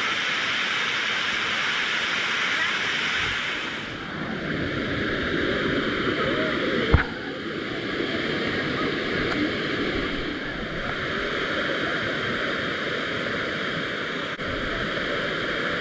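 Waterfall's water rushing steadily, with one sharp click about seven seconds in.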